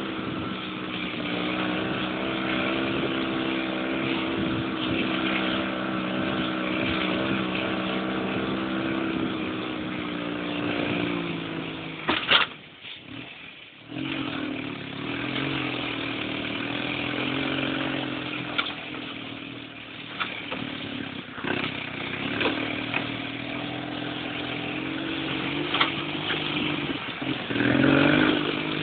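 Dune buggy engine running steadily as the buggy drives along, heard from on board. About twelve seconds in there is a sharp knock, then the engine sound drops away for about a second and a half before picking up again, and near the end it revs up with a rising pitch.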